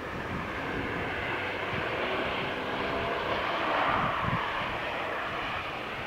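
An aircraft flying over, its engine sound swelling to a peak about four seconds in and then fading.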